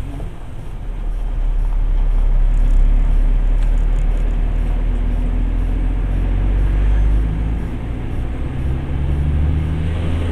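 Heavy truck's diesel engine running under way, with road noise. The engine note drops and changes about seven seconds in.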